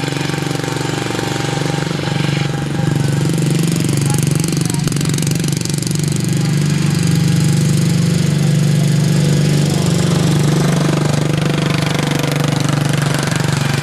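Racing lawnmower engines running at speed as the mowers lap the track, steady and buzzing, with pitch wavering as they go round. The sound grows louder toward the middle as they pass closer, then eases off near the end.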